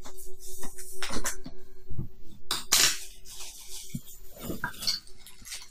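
Cardboard monitor box being opened by hand: irregular rustling, scraping and knocks as the flaps are pulled open and the packing inside is handled.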